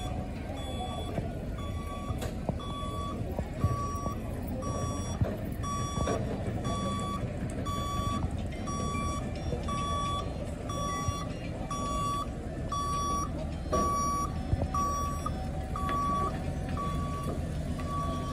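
Boardwalk tram car's warning beeper: a short, high, steady beep repeating evenly a little faster than once a second as the tram rolls along the wooden boardwalk, over a low rumble with a few scattered knocks.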